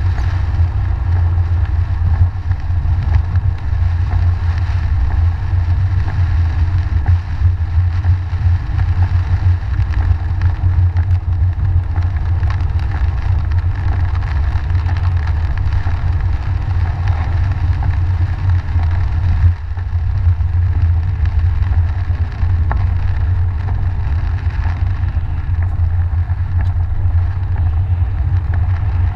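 Steady low rumble of a car driving on a wet road, heard from inside the cabin, with the hiss of the tyres on wet pavement.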